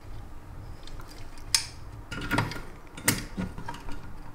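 A few light metallic clicks and clinks as an elliptical's tension cable fitting is handled and hooked onto the tension hook in the steel frame tube, loudest about one and a half and three seconds in.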